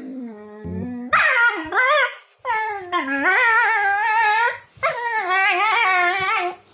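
German Shepherds play-fighting, one whining and howling in three long, wavering, drawn-out calls, after a lower grumbling call in the first second.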